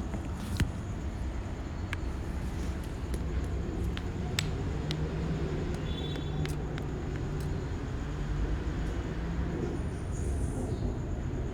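Steady low rumble of vehicle and workshop background noise, with scattered sharp clicks and taps, as of hand tools working on dashboard trim and fittings.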